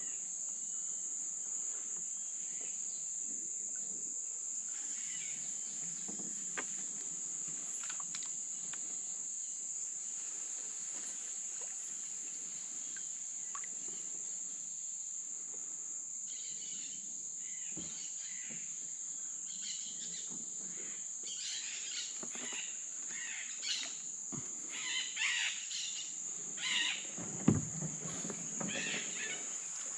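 Steady high-pitched insect chorus from the flooded forest. From about halfway on, irregular splashes and rustles of a canoe paddle working through water and foliage come in, the loudest about two and a half seconds before the end.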